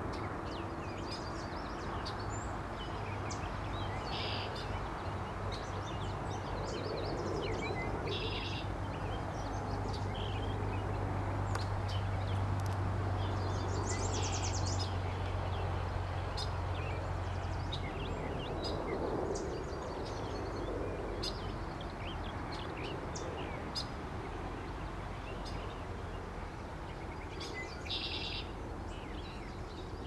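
Several unseen songbirds calling in spring woodland: scattered short high chirps, and every few seconds a brief, rapid trilled phrase. Underneath is a steady low background rumble, with a low hum that stops about two-thirds of the way through.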